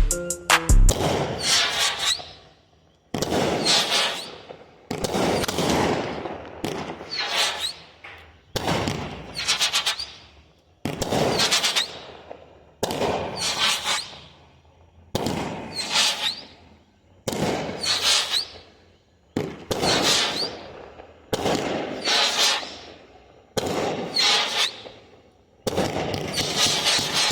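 A 36-shot, 500-gram firework cake firing its shots one after another, about one every two seconds. Each shot gives a sharp report that fades over a second or two, and the shots come closer together near the end.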